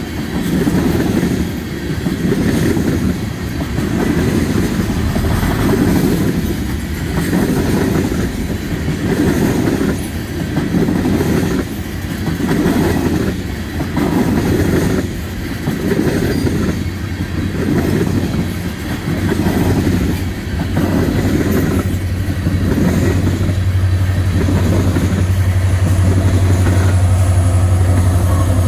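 Loaded ethanol tank cars of a freight train rolling past, the wheels clattering over the rails in a steady rhythm about once a second as each car goes by. In the last several seconds the steady drone of a Canadian Pacific diesel locomotive's engine grows louder as it draws near.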